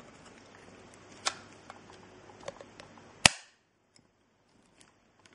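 Plastic power adapter being handled, with a few light clicks, then one sharp, loud snap a little over three seconds in as the interchangeable plug clip is pushed home onto the adapter.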